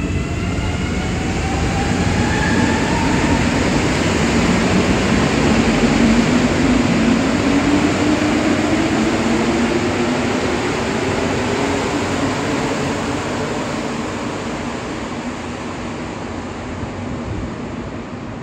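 A rubber-tyred Montreal Metro train pulls out of the station. Its electric motors give a rising whine as it accelerates, over a steady rush of running noise. The sound is loudest about six seconds in, then fades as the train leaves the platform.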